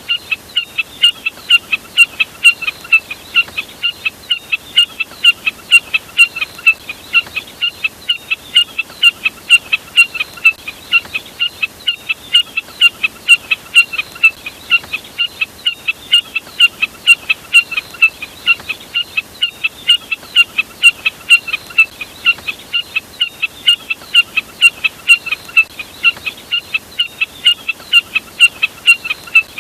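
Jack snipe calling: short, sharp notes repeated at an even pace of about three a second without a break.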